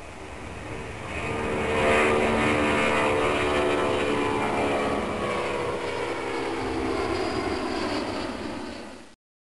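Lockheed L-1011 TriStar's Rolls-Royce RB211 turbofan engines as the jet flies past: the rush and whine swell about a second in, then the whine slides down in pitch as it passes. The sound cuts off suddenly near the end.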